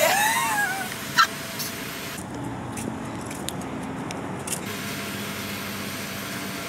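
A short, loud sliding vocal call at the very start, then a steady low hum of an idling vehicle with a few faint knocks.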